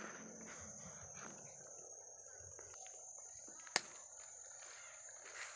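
Steady high-pitched insect chorus of tropical forest crickets, over faint rustling of footsteps through leaf litter. One sharp click about two-thirds of the way in.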